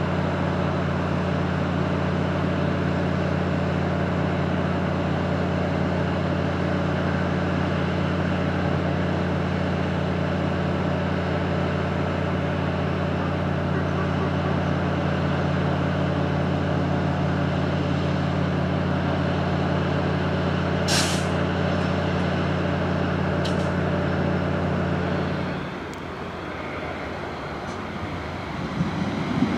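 Diesel multiple unit's engine idling with a steady hum, with a short hiss of air about three-quarters of the way through. The hum stops abruptly near the end, and train noise starts to build in the last moments.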